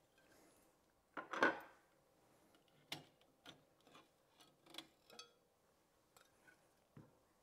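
Snap-on plastic chromax covers being pulled off a Noctua air cooler's aluminium heatsink fins: a short brushing scrape about a second in, then a scattering of small light clicks as the covers come free and are handled.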